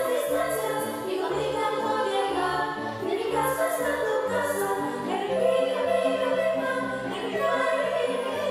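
Children's choir singing a song, many young voices together over a steady low musical backing.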